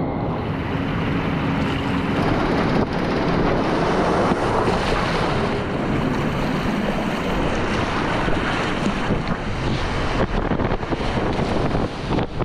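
Steady rush of whitewater rapids, with wind noise on the microphone.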